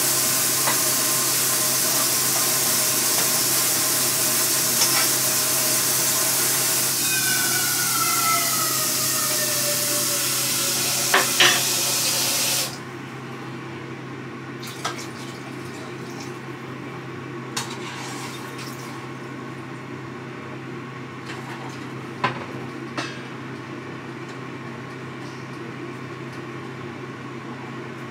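Kitchen tap running into a sink, shut off abruptly about halfway through. Then a few light clinks of dishes and utensils over a steady low hum.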